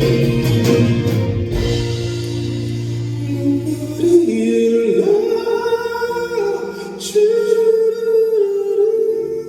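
Live pop ballad from a band with a singer, played over a venue sound system. Full band with drums for about four seconds, then the drums drop out and held keyboard and vocal notes ring on, as at the close of the song.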